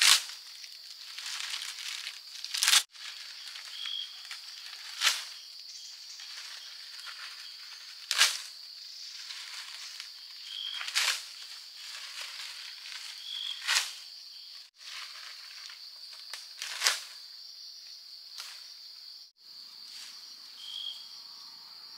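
Sharp strikes, seven of them about every two to three seconds, stopping about three-quarters of the way through, over a steady high whine.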